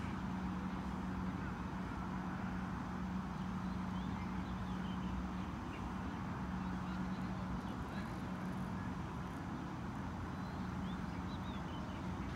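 A steady, machine-like background hum with a constant low tone, with a few faint, brief high chirps now and then.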